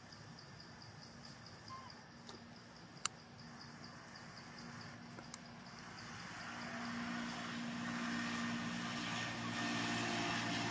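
An insect chirps in a rapid steady pulse, about five a second, with one sharp click about three seconds in. From about six seconds in, a motor vehicle engine grows louder and drowns it out.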